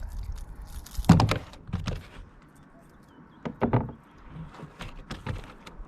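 Knocks and thumps on a kayak: a loud thump about a second in, then a few more short knocks through the middle and near the end.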